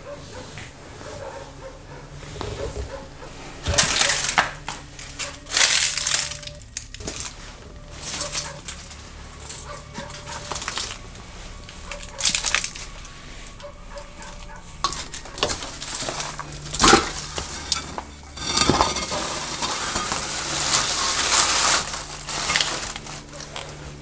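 Footsteps crunching and scraping over debris on a concrete floor, in a series of loud, uneven bursts, with dogs barking in the distance.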